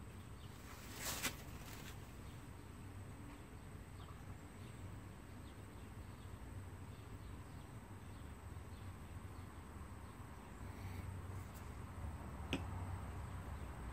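Faint handling sounds of aluminium water-chiller blocks: a brief rustle about a second in, a few light ticks, and one sharp click near the end as a ceramic Peltier module is set down on a block.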